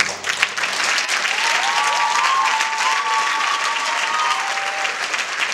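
Theatre audience applauding, with a few high whoops or whistles of cheering rising over the clapping from about a second in until past four seconds.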